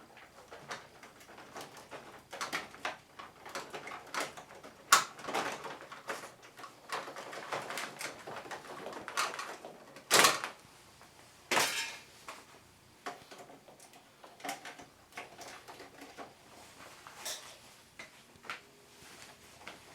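Plastic parts of a Panasonic wall-mounted air conditioner being handled during disassembly: irregular clicks, scrapes and rustling, with a few sharper knocks about five seconds in and again around ten and eleven seconds in.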